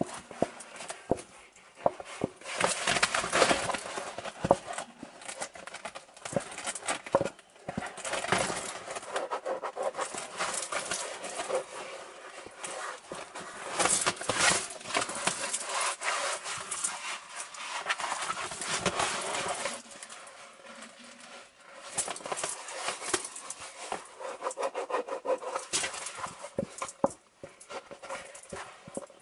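A sheet of pink Saffiano cowhide leather, about 1.3 mm thick, being flexed, bent and pressed between fingers close to the microphone: irregular rustling and rubbing with small clicks, coming and going with short lulls.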